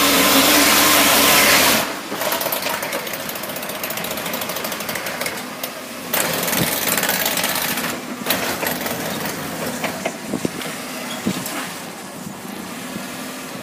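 Unladen Toyota forklift's engine running at high revs while its drive wheels spin and slip on a steel grating ramp, a sign of poor grip with no load; about two seconds in, the revs drop sharply. After that the engine runs lower, with scattered knocks and clatters as the forklift moves over the grating.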